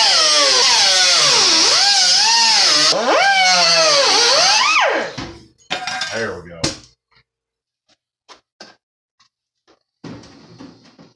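Loud background music with a melodic line that bends up and down in pitch, stopping about five seconds in; then a few light taps and knocks and a short rustle of handling near the end.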